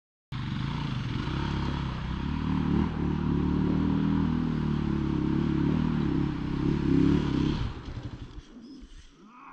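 Off-road vehicle engine revving hard under load on a steep dirt climb, cutting in suddenly and dying away near the end.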